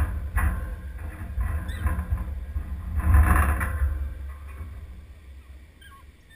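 Wind buffeting an outdoor camera's microphone: a low rumble that swells to its loudest gust about three seconds in, then eases off.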